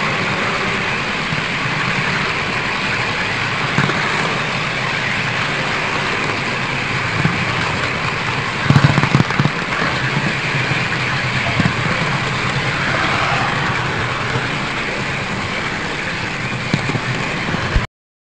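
Model railway trains running on the layout: a steady rolling noise of wheels on track, with a cluster of louder clacks about nine seconds in. The sound cuts off suddenly just before the end.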